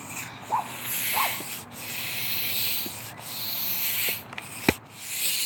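Hand air pump inflating a flat basketball through a needle: a few long hissing strokes, each about a second, with a sharp click near the end.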